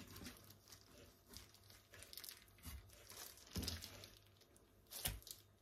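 Faint crinkling of disposable plastic gloves and quiet knife work as raw pork ribs are handled and trimmed of fat, with two soft knocks against the wooden cutting board, one midway and one near the end.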